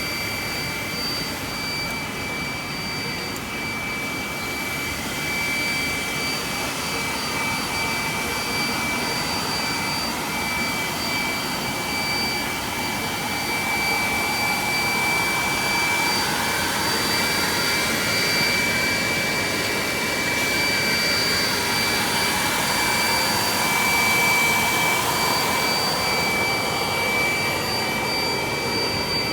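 Steady running noise of rubber-strip extrusion and microwave vulcanization line machinery: a continuous blower-like rush with a steady high-pitched whine over it.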